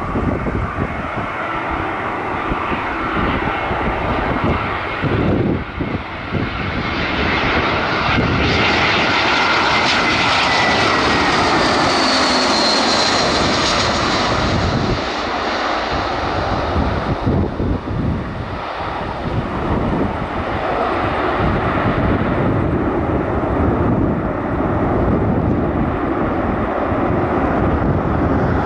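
Airbus A320 jet airliner's engines running as the aircraft passes, with a whine that glides down in pitch about nine to thirteen seconds in. Gusty wind buffets the microphone.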